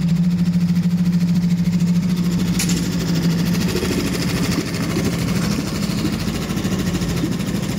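Suzuki DF6 single-cylinder four-stroke outboard motor running with a steady even hum. About two and a half seconds in there is one sharp click, after which the running sound turns rougher and less even.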